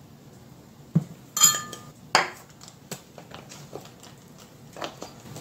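Metal measuring cup knocking against a stainless steel mixing bowl while chickpea flour is tipped in: a dull knock about a second in, then two ringing metallic clinks, followed by a few lighter taps.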